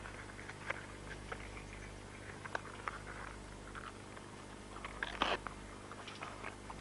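Faint, scattered crackles and snaps of dry grass and stems being trampled or torn, the loudest cluster about five seconds in, over a steady low hum.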